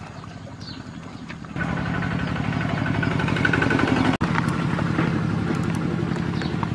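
A small engine running steadily. It cuts in abruptly about one and a half seconds in and drops out for an instant about four seconds in.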